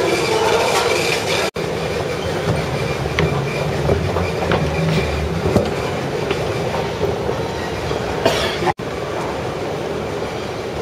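Steady hall noise of a large airport terminal, a low rumbling hum with faint clatter and clicks, heard while riding a moving escalator. The audio cuts out completely for an instant twice.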